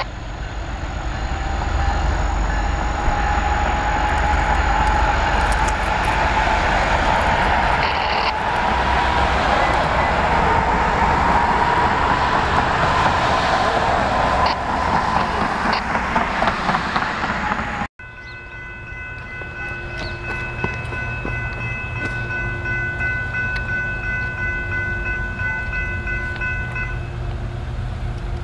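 Diesel-electric locomotives running in a rail yard: a steady engine rumble with a whine that slowly rises in pitch. After a break partway through, an approaching train's air horn sounds a long, steady chord of several notes.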